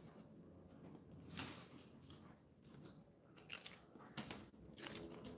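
Plastic stencil pieces being peeled up and lifted off a painted plaque: a series of short, quiet crinkling and scraping strokes, closer together in the second half.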